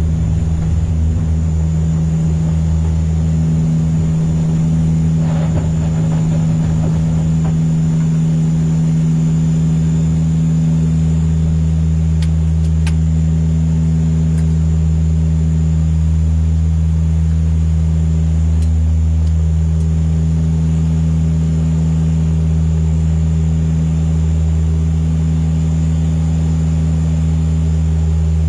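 Dash 8 turboprop's engines and propellers droning steadily in flight, heard from inside the aircraft, with a deep, even propeller hum. A brief rustle comes about five seconds in.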